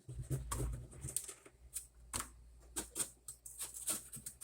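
Irregular light clicks and taps, several a second and uneven, over a low steady hum.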